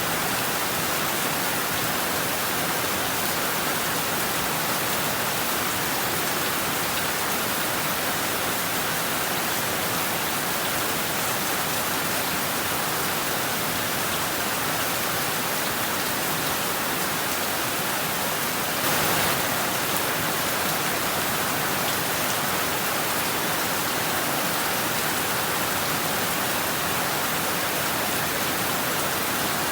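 Heavy rain falling steadily on rooftops and trees as a dense, even hiss, with one brief louder surge about two-thirds of the way through.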